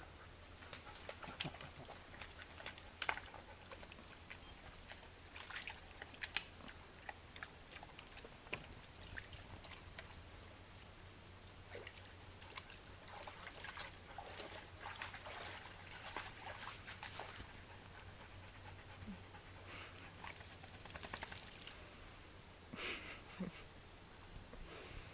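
Faint scattered splashes, snaps and rustles of dogs moving through a muddy forest pool and twig litter, with small sloshes from a wirehaired pointing griffon wading in the mud.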